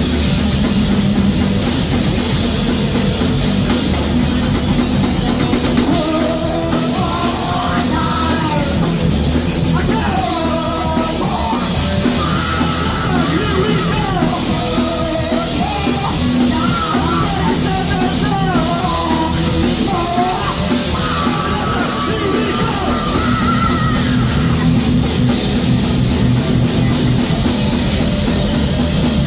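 Live thrash metal band playing loud, with distorted electric guitars, bass and drums. Yelled vocals come in about six seconds in and run until a few seconds before the end, leaving the band playing on its own.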